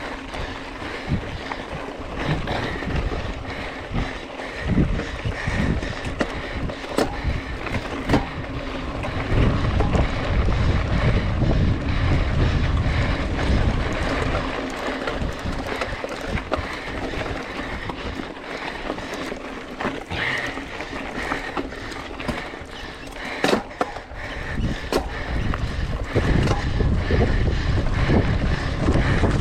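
Wind buffeting the microphone during a mountain bike ride, the low rumble swelling and easing, with occasional sharp knocks and rattles from the bike over rough ground.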